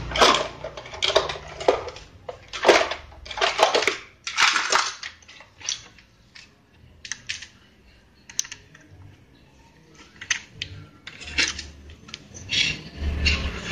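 Irregular clicks and light metallic taps of small screws and tools being handled while screws are fitted into a radio's parts. The clicks come thick in the first few seconds, thin out in the middle, and pick up again near the end.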